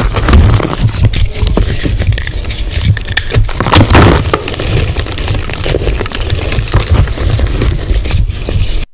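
Gym chalk being crushed close up, a dense run of crunching and crumbling crackles that cuts off suddenly near the end.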